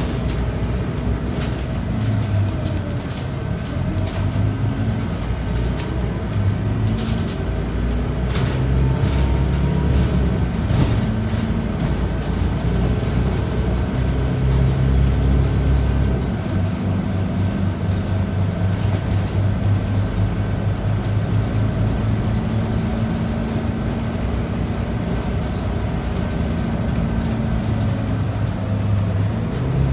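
Scania K94UB city bus heard from inside on the move: its 9-litre six-cylinder Scania DC9 diesel pulls and accelerates, the engine note stepping between levels several times as the ZF five-speed automatic shifts. Short body and fitting rattles come through in the first half.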